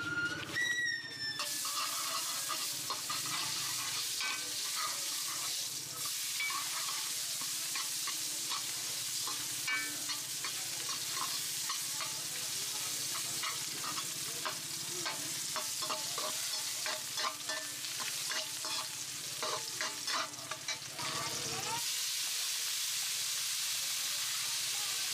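Food sizzling as it fries in oil in a metal wok, with a metal spatula repeatedly scraping and clinking against the pan as it is stirred. The scraping stops near the end.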